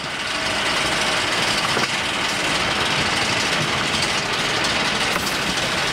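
Steady, even running noise of concrete block production-line machinery: the chain conveyor and drive motors carrying a pallet board into the pallet lifter.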